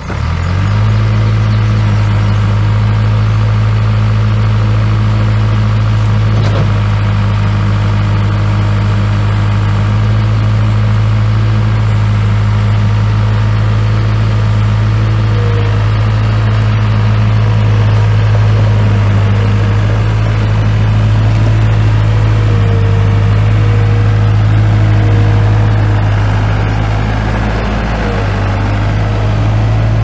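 Case four-cylinder diesel engine of a 2002 Case 85XT skid steer running at a steady speed, settling within the first second after starting up.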